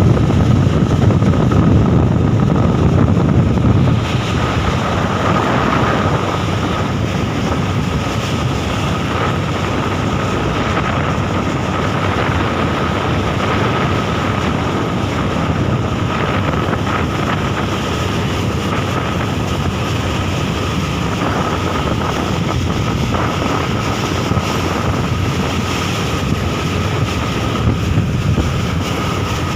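A vehicle on the move: steady road and engine rumble with wind buffeting the microphone and a faint steady whine. The rumble is heavier for the first few seconds, then eases to an even level.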